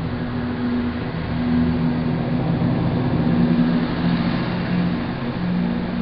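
Class 170 Turbostar diesel multiple unit's underfloor diesel engines running under power as the train pulls along the platform, a steady engine drone with wheel and rail noise that grows louder about a second and a half in.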